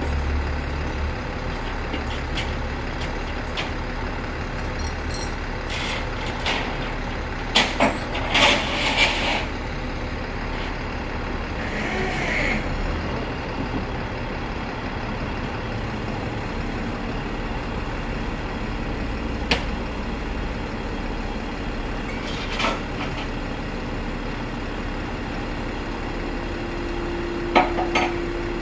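Flatbed tow truck's engine running steadily while the winch draws a car up the tilted bed, with a few sharp metallic clanks of hooks and chain and a steady low hum near the end.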